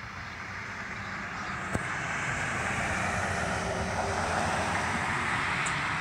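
Rushing noise of a distant passing vehicle, swelling over the first few seconds and then holding steady.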